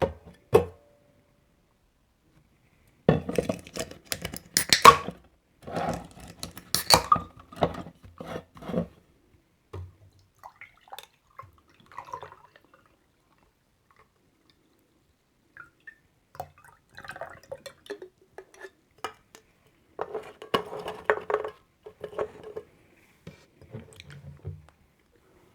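Handling of a coffee drink and glassware at close range: two spells of clinks, taps and knocks with a little liquid sound, separated by long pauses.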